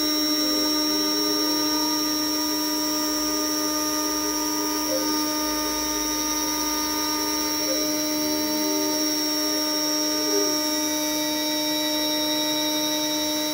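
CNC router spindle running steadily with a high whine while a 0.5 mm conical bit engraves shallow lines into birch plywood. Fainter tones underneath shift up and down in pitch as the machine moves the bit.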